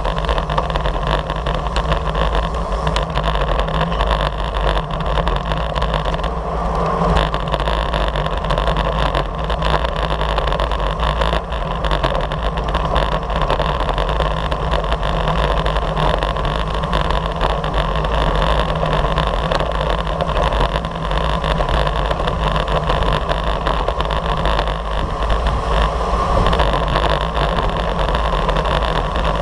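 Steady wind rush over a bicycle-mounted action camera's microphone, mixed with tyre and road noise, while riding at race speed in a group of road bikes.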